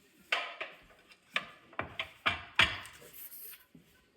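Kitchen utensils knocking and clinking against cookware: about six sharp knocks with a short ring, over the first three seconds.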